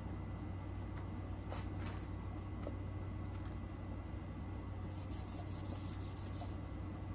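Faint rustling and light ticks of protective plastic film being peeled and a clear plastic phone case being handled, over a steady low background hum.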